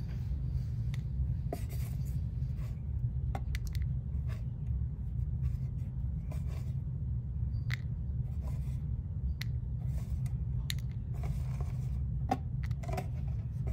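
Fingers rummaging through mealworms and their bran substrate in a plastic tub, with faint scattered scratches and light clicks, over a steady low hum.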